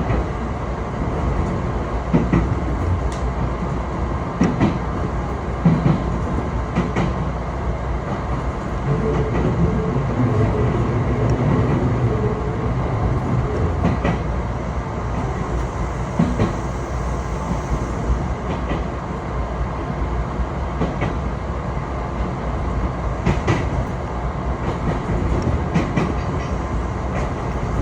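Train running along the line: a steady low rumble, with a sharp click now and then as the wheels pass over rail joints, at irregular spacing rather than a regular clickety-clack.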